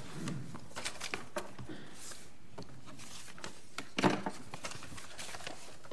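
Papers rustling and being handled at a lectern, with scattered light clicks and knocks picked up by the lectern microphone; a small cluster of knocks and rustles about four seconds in.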